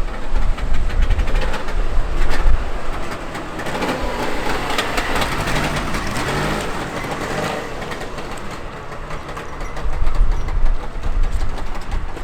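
Trabant's two-stroke engine running during a drive, under dense road and vehicle noise with a heavy low rumble that is strongest near the start and near the end.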